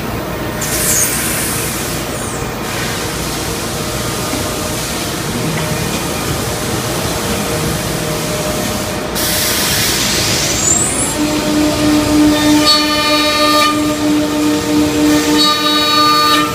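C.R. Onsrud Panel Pro CNC router running, with a steady rushing machine noise. About nine seconds in comes a brief loud hiss. From about eleven seconds a router spindle sets in with a steady pitched hum and a whine above it that swells and fades.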